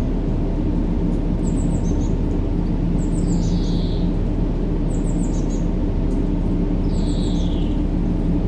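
Steady, deep white-noise hiss for baby sleep, muffled with the highs cut off. Over it, short high bird chirps repeat about every two seconds, and a soft falling chirp comes twice, evenly spaced like a loop.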